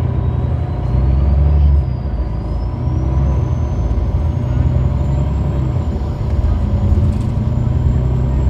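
MAN A20 bus's MAN D2866 six-cylinder diesel running under way, heard from inside the cabin as a steady low drone that drops a little in loudness just under two seconds in. A faint high whine climbs slowly in pitch over the first half.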